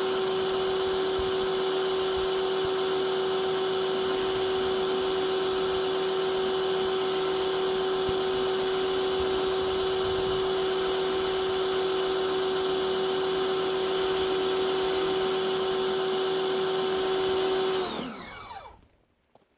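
SunJoe electric pressure washer running steadily under load while cleaning concrete through its surface-cleaner attachment: a steady motor and pump whine over spray hiss. Near the end it shuts off, the whine falling in pitch as the motor winds down.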